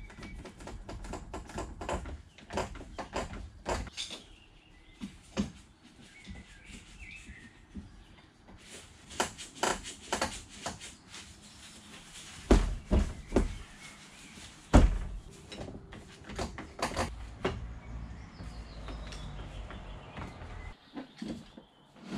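Irregular clatter of clicks and knocks as bar clamps are set and tightened down on a bent-wood lamination glue-up, with a couple of heavier thumps about halfway through.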